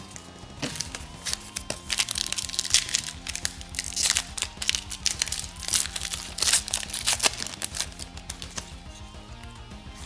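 Foil trading-card pack wrappers crinkling and tearing as packs are handled and opened, loudest in the middle few seconds. Background music with a steady low beat plays throughout.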